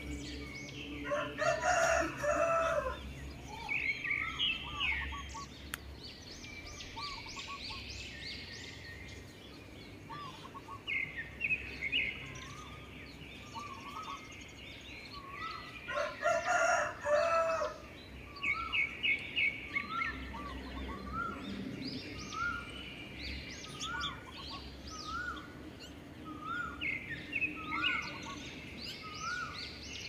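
A rooster crowing twice, once about a second in and once about halfway through, over wild birds chirping and trilling. One bird repeats a short rising note about once a second through the second half.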